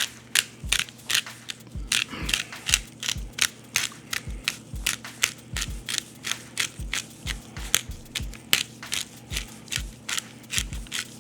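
Pepper mill grinding black peppercorns: a steady run of gritty crunching clicks, about three a second, as the mill is twisted over and over.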